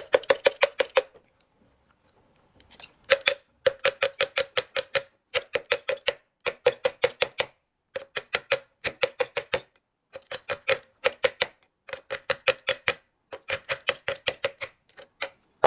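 Mallet tapping rapidly on the end of a Somfy tubular blind motor to knock loose the stuck end capsule holding the electronics. The taps come in quick runs of about seven a second, each run lasting about a second, with a longer break about a second in.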